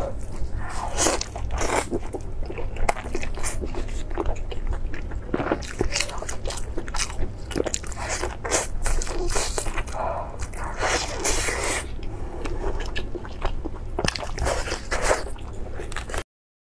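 Close-miked eating sounds: a person biting and chewing lamb leg meat, a dense string of short bites, chews and crunches. The sound cuts off suddenly near the end.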